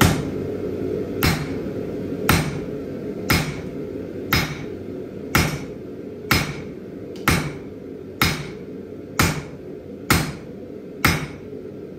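Blacksmith's hand hammer striking hot steel on an anvil: twelve steady blows, about one a second, each with a short metallic ring, over a steady drone.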